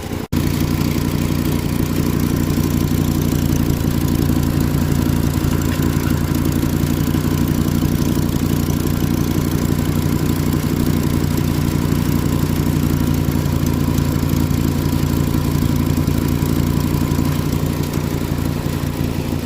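Volkswagen Rabbit engine idling steadily, on a car with a leaking exhaust. The sound breaks off for a moment just after the start, then runs on evenly.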